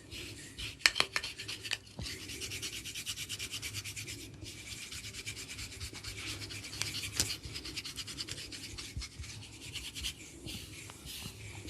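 Fingers rubbing and scratching an oiled scalp and hair in fast, rhythmic strokes close to the microphone. A few sharp cracks stand out about a second in.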